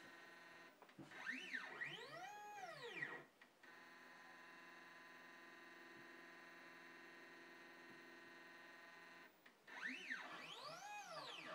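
Desktop CNC mill's stepper motors whining during an autoleveling probe scan. A whine rises and falls in pitch as the head moves to the next grid point, then holds steady while the Z axis feeds slowly down to probe the board, and another rise-and-fall move comes near the end.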